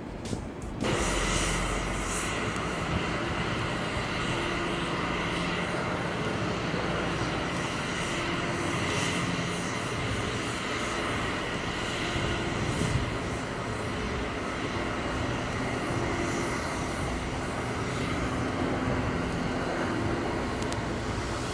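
Steady roar of aircraft engines, starting suddenly about a second in and holding at an even level.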